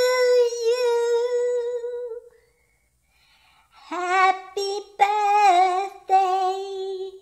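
High-pitched, wordless singing from an animated cat: one long held note, then after a pause of about a second and a half, a phrase of several notes.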